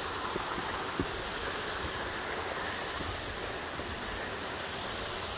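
A steady rushing noise with a few faint knocks of footsteps on loose, flat rock.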